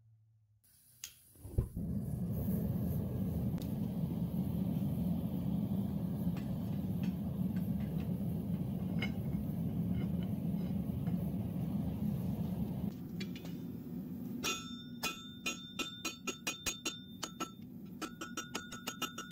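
Gas forge burner running with a steady low rushing noise, after a couple of knocks as the blade goes in. About two-thirds of the way through it drops back, and a quick run of hammer blows on hot steel over a JHM Certifier anvil begins, each blow ringing clearly.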